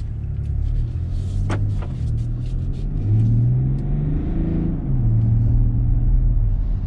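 BMW X5 with M Performance exhaust accelerating, heard from inside the cabin. The engine note climbs about three seconds in, drops at a gear change, then holds steady as the car cruises.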